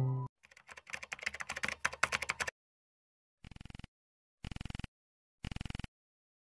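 Soft piano background music cuts off, then a keyboard-typing sound effect plays for about two seconds, followed by three short bursts of rapid clicking about a second apart: sound effects of an animated outro title card.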